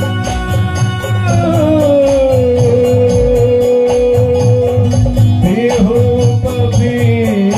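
Live Kumauni folk band playing an instrumental passage: a melody of long held notes, sliding down about two seconds in, over a steady drum beat with a shaker or jingle keeping time at about four strokes a second.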